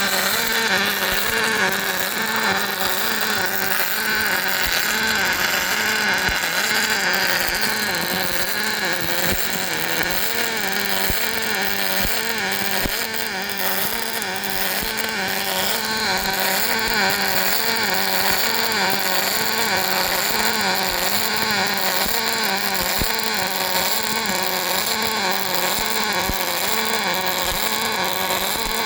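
Welding equipment running: a steady electrical hum that wavers up and down about once a second, with constant hiss and scattered crackles.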